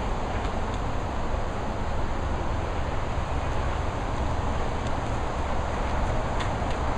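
Steady, even rushing noise with a heavy low rumble, with no letup, and a couple of faint clicks near the end.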